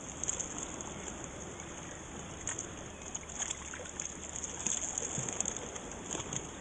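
Shallow seawater sloshing and lapping as a child wades through it pushing a bodyboard, with light splashes here and there.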